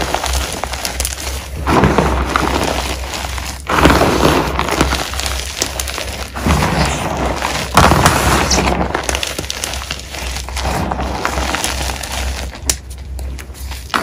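Hands squeezing and raking loose, powdery gym chalk, a soft crunching and crumbling with fine crackles, coming in surges every second or two.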